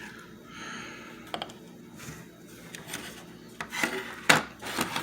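Handling noise from a small plastic portable table fan being turned over and rubbed in the hands: light rubbing and scraping with scattered clicks, busier near the end with one sharp click.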